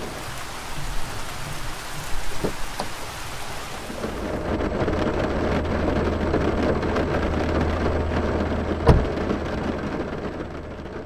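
Heavy rain falling, with thunder rumbling. A steady low hum joins about four and a half seconds in, and a single sharp click sounds about nine seconds in.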